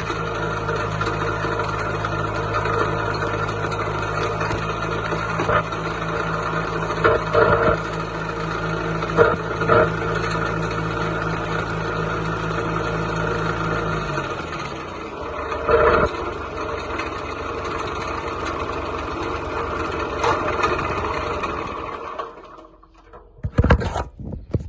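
John Deere 2130 tractor's diesel engine running steadily, then shut off about fourteen seconds in. A fainter steady noise carries on for several seconds afterwards, and a few knocks come near the end.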